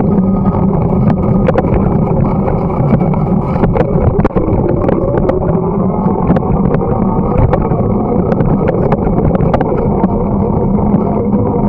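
Wind rushing over the microphone and the rolling noise of a bicycle riding along a winter path, with frequent small clicks and rattles from the bike.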